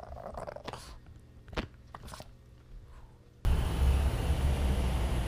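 A dog chewing and biting a plastic frisbee, a few sharp clicks and crunches against a quiet room. About three and a half seconds in it cuts abruptly to a loud, steady rumble and hiss.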